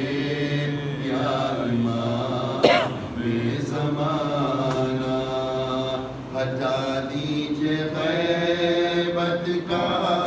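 A man's solo voice chanting a munajat qasida, a devotional supplication poem, in long held melodic notes. A brief sharp noise cuts in about two and a half seconds in.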